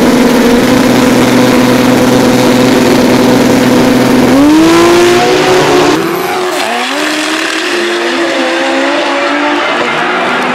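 Drag-racing engines, the 1000 hp Supra-engined Toyota pickup and its opponent, held at steady high revs on the starting line, then launching about four seconds in, their pitch climbing again and again through gear changes as they pull away down the strip. The sound is heard from farther off after about six seconds.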